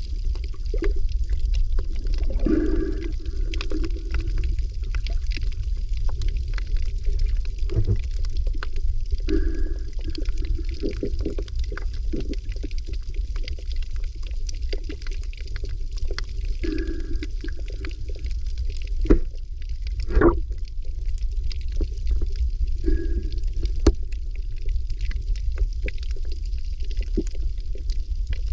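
Underwater ambience: a steady low rumble of water with many faint scattered clicks, and a softer swell of water sound every six or seven seconds. Two sharper knocks come about two-thirds of the way through.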